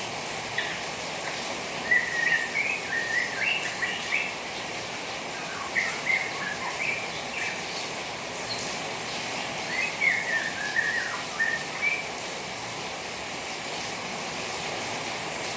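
Juvenile white-rumped shama twittering in short chirpy phrases, three spells of it, over a steady hiss of rain water.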